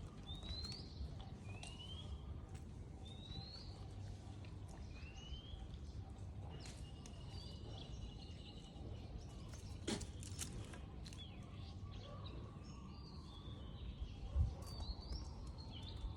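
A bird calling over and over, a short chirp that glides up in pitch about every second and a half during the first six seconds, over a low outdoor rumble, with one sharp click about ten seconds in.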